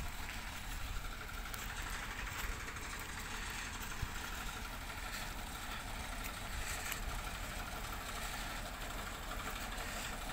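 Tractor engine running steadily at idle.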